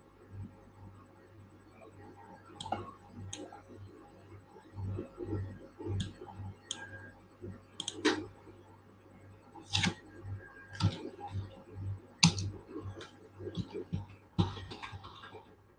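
Irregular computer mouse and keyboard clicks, scattered singly and in short runs and busier in the second half, over a low steady electrical hum.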